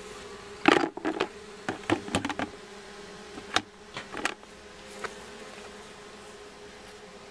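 A honeybee swarm humming steadily in and around a wooden swarm box, with bees at the entrance fanning pheromone to call stragglers in. A quick run of sharp knocks and clicks, the loudest sounds, comes about a second in and again around three and a half to five seconds in.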